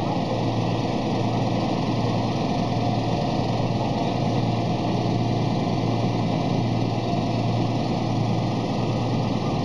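Steady mechanical drone of a running engine or motor, with a constant low hum and no change in level.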